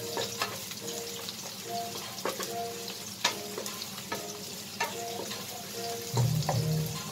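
Garlic and onion sizzling in a nonstick frying pan as a wooden spatula stirs them, with repeated sharp taps and scrapes of the spatula against the pan.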